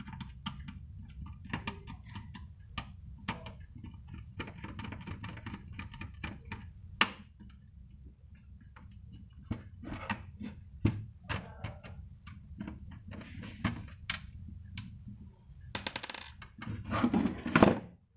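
A satellite dish receiver's casing being opened by hand with a screwdriver: a run of sharp clicks, taps and small scrapes from screws and plastic and metal parts, with one louder click about seven seconds in. Near the end comes a louder stretch of scraping and rattling as the cover is worked off.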